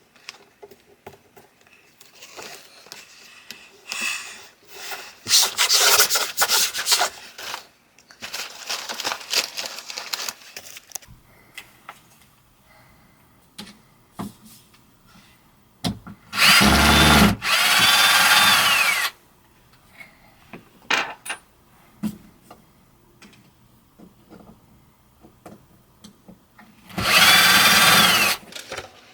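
Power drill running in two short bursts of about two seconds each, one just past halfway and one near the end, with softer rustling and scraping earlier.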